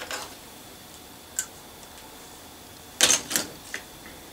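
Small plastic and metal parts of a model locomotive clicking and tapping as they are handled on a workbench: a single click about a second in, then a quick cluster of clicks near the end.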